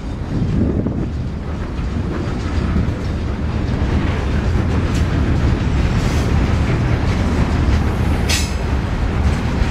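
CSX freight train rolling past, its cars making a steady, loud low rumble on the rails, with a brief high-pitched squeal about eight seconds in.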